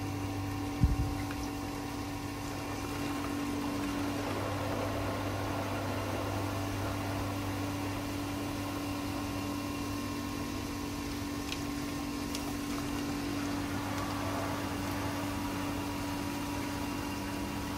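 Pool circulation pump running with a steady electric-motor hum, water rushing through the plastic pipework, and a single knock about a second in.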